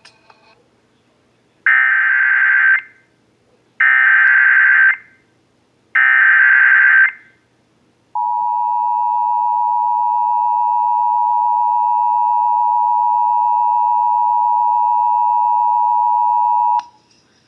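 Emergency Alert System activation tones: three roughly one-second bursts of SAME header data, then the steady two-tone attention signal for about eight and a half seconds, cutting off abruptly. It marks the start of a severe thunderstorm warning alert.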